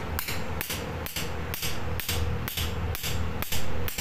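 Steel hammer tapping a gudgeon pin through a car piston and its connecting rod's small end, a steady run of sharp blows about two a second.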